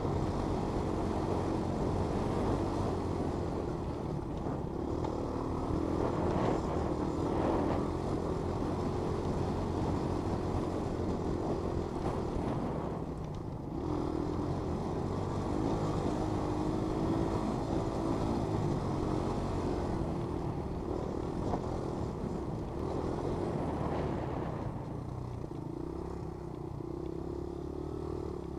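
Honda 200SX quad's single-cylinder four-stroke engine running under throttle over a bumpy dirt trail. Its pitch wavers with the throttle, and it eases off briefly about halfway through.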